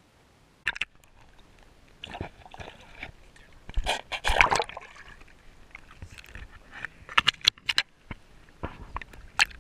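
Shallow lake water splashing and sloshing as a caught bass is handled and put back in by hand, loudest about four seconds in, with sharp knocks and clicks from the camera being handled at the water's edge.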